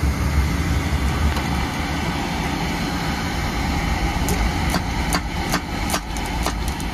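Carlin oil burner on a Peerless oil-fired boiler running with a steady low roar, fired on a call for heat to show the new thermostat wiring works. From about four seconds in, sharp clicks or taps sound over it, about three a second.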